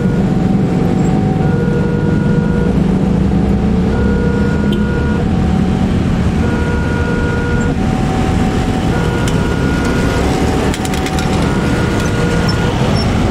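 Railway level-crossing warning alarm sounding two alternating tones, high and low, each held about a second, which signals that a train is approaching and the barrier is down. A steady low engine rumble runs beneath it.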